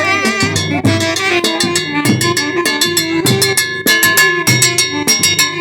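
Live Latin dance band playing, with the drum kit to the fore: regular kick and snare hits under sustained instrument notes.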